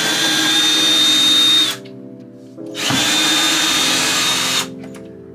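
Ryobi cordless drill/driver running in two bursts of about two seconds each, with a steady high whine, backing out screws to take an aftermarket stereo box off the cabinet. Background music underneath.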